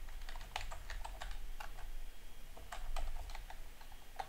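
Typing on a computer keyboard: an irregular run of short key clicks.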